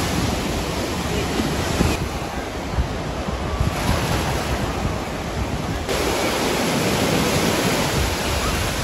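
Ocean surf breaking and washing in a steady roar of noise, with wind rumbling on the microphone.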